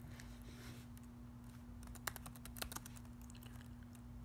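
Faint typing on a computer keyboard, a quick run of key clicks through the middle, over a steady low hum.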